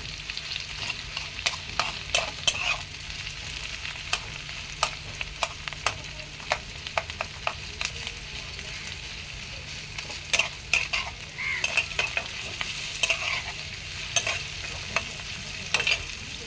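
Chopped onion, garlic, green chilli and tomato with small prawns sizzling in hot oil in a kadai, stirred with a spatula that knocks and scrapes against the pan in irregular clicks.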